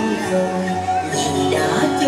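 A woman singing a Vietnamese song into a microphone over instrumental backing music, amplified through a sound system.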